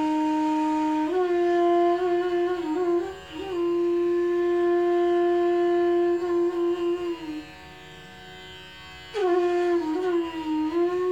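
Bansuri, a large bamboo transverse flute, played solo: long held low notes joined by ornamented slides. It breaks off for about a second and a half near the end, then comes back in with a downward glide that rises into another held note.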